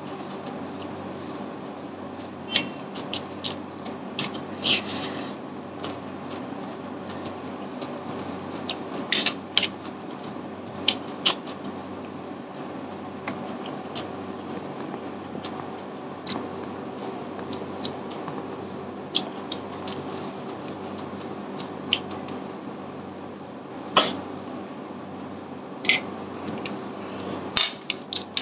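Eating by hand from a plate of snail curry and rice: scattered sharp clicks and taps as snail shells knock against each other and the plate, with mouth noises of chewing, over a steady low hum.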